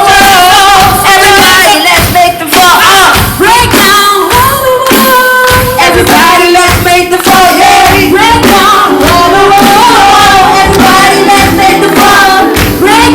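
Pop song with sung vocals, female voices prominent, over a steady drum beat.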